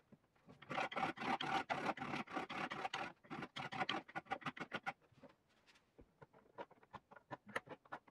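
Small hand file rasping the freshly hacksawed end of a metal bolt held in a wooden jig, in quick short strokes that turn lighter and sparser about halfway through. The filing cleans up the cut so the start of the thread is clean enough to thread into the inserts.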